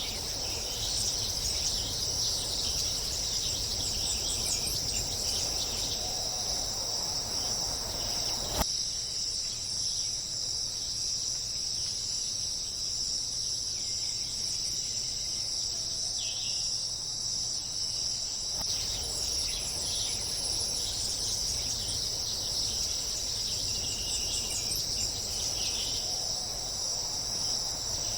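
Steady high-pitched chorus of crickets chirring without pause, with a few faint, short bird chirps mixed in. The lower background ambience cuts off abruptly about nine seconds in and returns near nineteen seconds.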